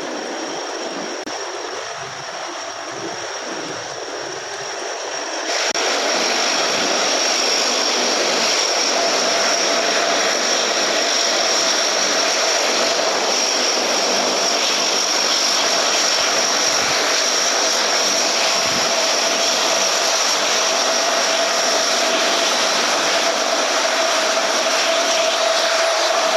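Aircraft engine running steadily, a loud rushing noise with a high whine, jumping abruptly louder about five seconds in.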